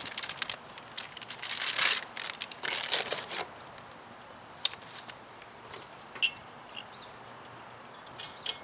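Packaging crinkling in several bursts over the first three seconds or so as a fog light kit's wiring is handled, then a few light clicks and taps.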